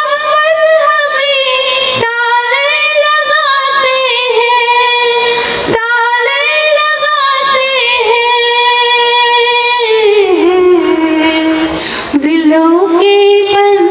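A woman's solo voice singing a Hindi poem in a drawn-out melody, holding long notes of a couple of seconds each with brief breaths between them. Near the end the line sinks lower in pitch and then climbs back up.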